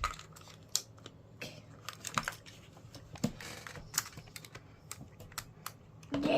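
Light, irregular clicks and taps of hard plastic toy pieces being handled and fitted back together.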